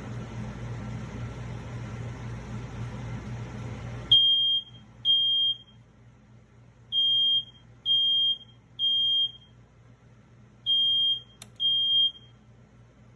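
A steady running hum cuts off about four seconds in. It is followed by seven high electronic beeps of about half a second each, in uneven groups of two, three and two, with a single sharp click near the end.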